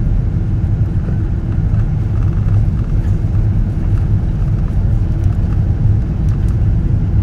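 Steady low rumble of cabin noise inside a Boeing 777-200 airliner, the engines and airflow heard through the cabin.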